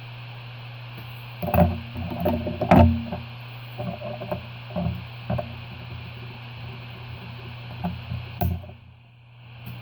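Short clicks and knocks of small tools and a circuit board being handled on a workbench, bunched in the first half and twice more near the end, over a steady electrical hum.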